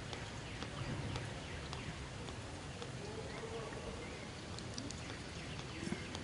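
Outdoor forest ambience: a steady background hiss with scattered soft clicks and faint, short high chirps.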